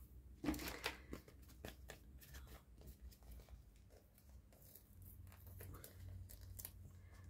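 Faint rustling and scattered light clicks of paper craft supplies being handled, as foam adhesive dimensionals are peeled from their backing sheet; the clearest click is about half a second in.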